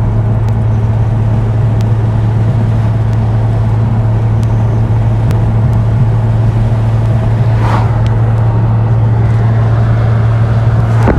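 Car on the move with a steady low drone from engine and road, and a faint tick from a tire now and then.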